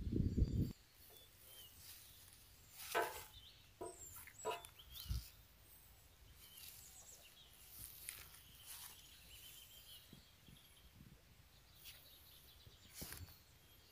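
A brief low rumble that cuts off under a second in, then faint outdoor background with a few short, scattered animal and bird calls.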